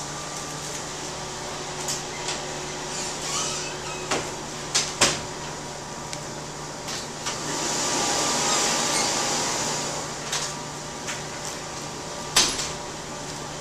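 Shredded plastic flakes rustling and crinkling as hands scoop and pack them into a cloth on a woven plastic sack. Scattered sharp clicks and crackles come through, with a longer stretch of rustling about two-thirds of the way in, all over a steady low background hum.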